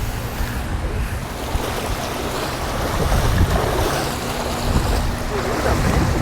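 Wind buffeting the microphone: a steady rumbling, rushing noise with no clear breaks.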